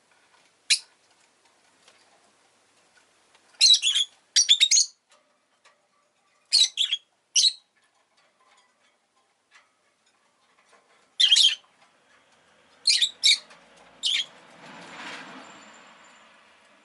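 Rosy-faced lovebird giving short, shrill chirps in separate clusters, some doubled or tripled, with pauses of a few seconds between them. Near the end a low rush of passing street traffic swells and fades.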